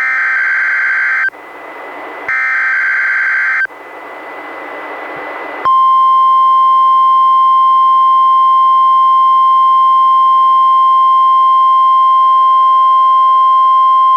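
NOAA Weather Radio Required Weekly Test heard through a weather radio: two harsh digital SAME header data bursts, each just over a second long, with radio hiss between them. About six seconds in, the steady single-pitch 1050 Hz warning alarm tone begins and holds.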